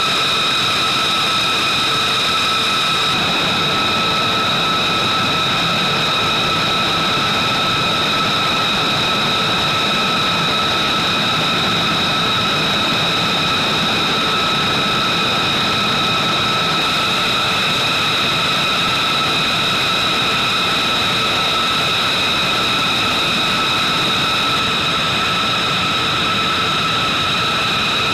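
B-2 Spirit's turbofan jet engines running steadily at idle: a constant high whine made of several steady tones over a rushing hiss.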